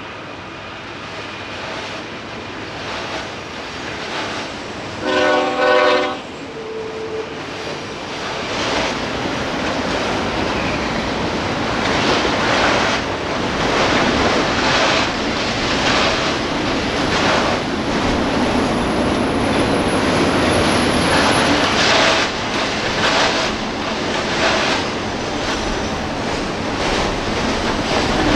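Union Pacific diesel freight train passing: a short air-horn blast about five seconds in, then the long string of autorack cars rumbling past with the wheels clattering over the rail joints.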